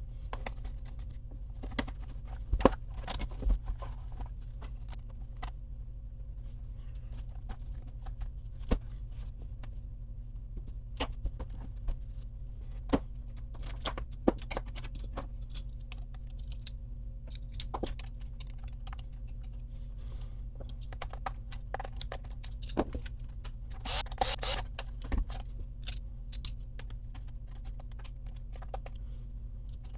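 Small metal parts and tools clinking and clicking on a workbench as an RC truck's rear differential and bulkhead are worked on. The sharp clicks come at irregular intervals, with a brief cluster of jingling near the end, over a steady low hum.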